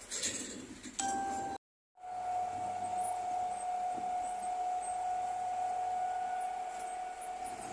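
Bulldozer running with a steady, high-pitched whine, with a short rush of noise near the start and a brief break to silence about two seconds in.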